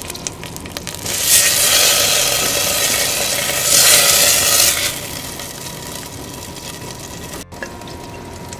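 Red chile sauce and melting butter sizzling in a stainless steel stockpot over a gas burner while a spatula stirs it. The sizzle is loudest for about four seconds after the first second, then settles to a quieter steady sizzle.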